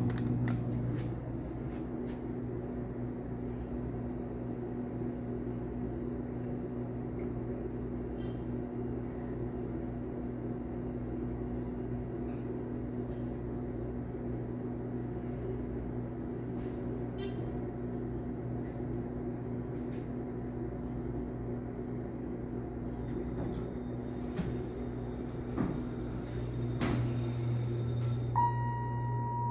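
Dover Impulse hydraulic elevator answering a hall call: a steady low hum while the car comes, then the doors slide open with a rush and knocks in the last few seconds, and a single tone sounds for about a second near the end.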